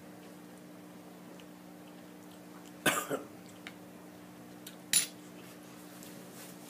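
A metal spoon clinking against a small glass jar: a quick rattle of clinks about three seconds in and one sharp clink about two seconds later, over a faint steady low hum.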